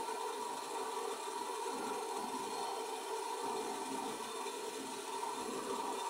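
Gas brazing torch burning with a steady hiss while heating a copper joint on a refrigerator compressor line. The flame is weak from a low gas supply.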